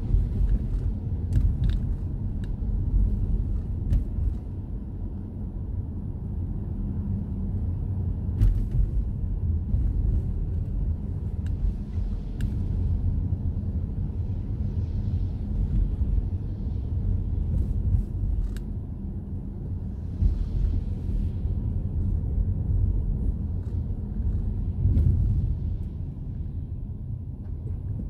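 Steady low rumble of a car's engine and tyres on a wet road, heard from inside the cabin, with occasional faint clicks at irregular moments.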